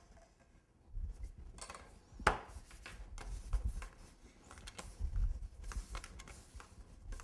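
Small plastic rolling pin rolling out fondant on a countertop: soft rubbing and low bumps, with one sharper click a little over two seconds in.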